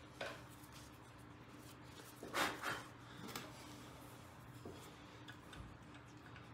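Faint handling noises of engine parts being fitted by hand: a few light clicks and a brief rubbing scrape about two and a half seconds in, over a faint steady hum.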